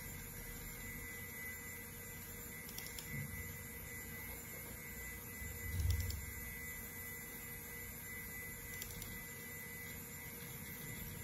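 IBM PC Server 315 running with a steady hum of fans and drives and a thin, steady high tone. Faint clicks in pairs come three times, and a dull low thump comes with the middle pair.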